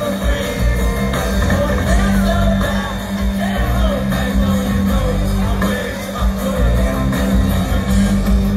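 Rock band playing live through a large concert PA, with a singer's voice over heavy bass, heard from within the crowd.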